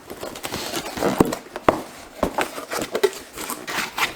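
Packaging being pulled open by hand, crinkling and rustling with irregular sharp crackles and taps.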